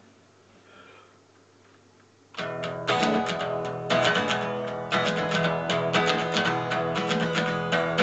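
A quiet room for the first two seconds or so, then a guitar comes in strumming chords in a steady rhythm: the instrumental intro of a song.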